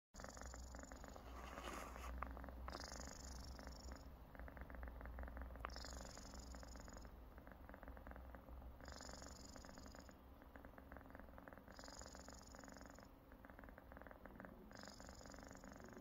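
Sleeping cat snoring: a faint, rattling breath in a slow cycle, with an airy note on each breath about every three seconds.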